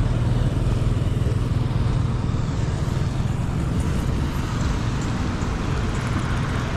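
Motor vehicle running steadily, a low engine hum over tyre and road noise, with no change in pace.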